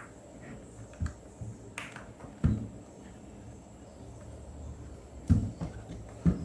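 Digital Alliance Meca 6 Plus mechanical keyboard: a handful of separate keystrokes, each a sharp click with a deep thud, with a pause of about two seconds in the middle. The loudest strokes come about two and a half seconds in and near the end.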